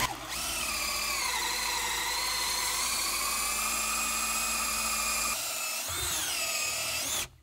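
Electric drill boring into timber. The motor whine sags in pitch about a second in as the bit bites and holds under steady load, then climbs again near the end before the drill stops.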